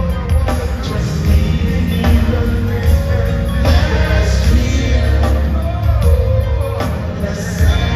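Live R&B band playing with heavy bass and keyboards, a lead vocal singing over it, heard from the audience through a phone's microphone in an arena.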